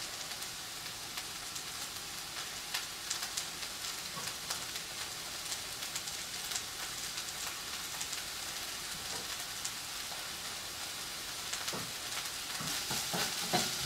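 Chopped mushrooms and bell peppers sizzling steadily in a little oil in a nonstick frying pan, a fine crackling hiss. A few soft knocks come near the end.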